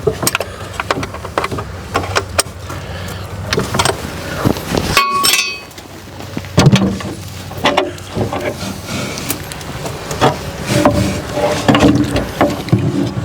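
Irregular knocks, clinks and scraping of tools and metal parts being handled during hands-on work on an excavator.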